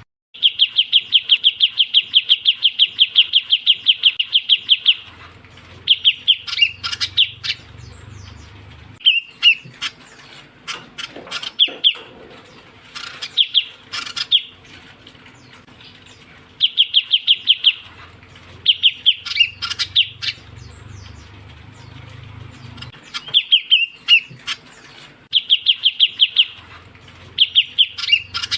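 Ciu kunyit lure call: fast, high trills of rapidly repeated notes. It opens with one long trill of about four and a half seconds, then gives shorter trilled phrases and sharp chirps again and again. A low hum runs along with the louder bouts.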